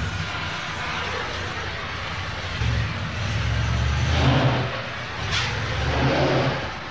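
Auto repair shop ambience: a car engine running, swelling louder from about two and a half seconds in, with a short sharp knock a little after five seconds.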